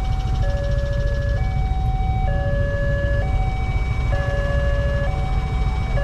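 Railway level-crossing warning alarm sounding a steady hi-lo two-tone, each tone held about a second, signalling that a train is approaching. A steady low rumble runs underneath.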